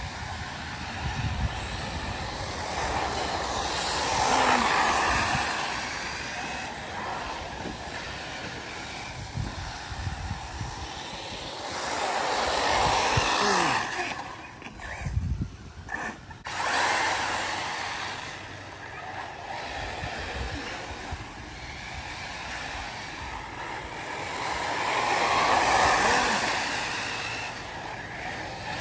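Arrma Typhon 6S electric RC buggies running laps on a dirt track, their motor and tyre noise swelling and fading as the pack passes three times, about every ten seconds.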